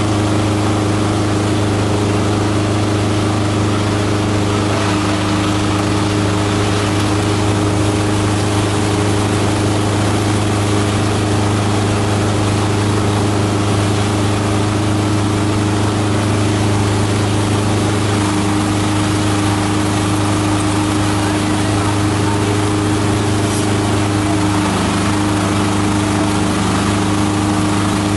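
Esteban 9-in-1 multi-purpose chopper/shredder running steadily while leafy green plant material is fed into it: a constant low motor hum with steady tones over it, changing slightly in tone near the end.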